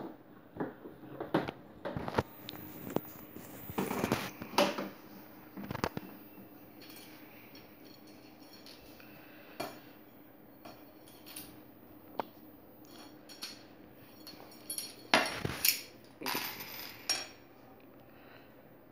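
Hollow plastic ride-on car body being handled and turned over on a tiled floor: irregular knocks and clatters for the first several seconds. Sparse light ticks follow, then another burst of clinking and rattling from small hardware such as washers and bolts being handled.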